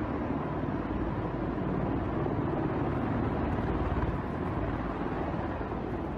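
Steady rotor and engine noise of a large heavy-lift helicopter in flight.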